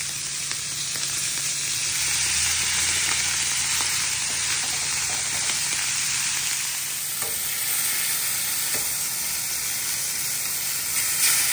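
Prime sirloin steaks searing in hot oil, a steady sizzle with scattered crackles and a brief louder flare near the end.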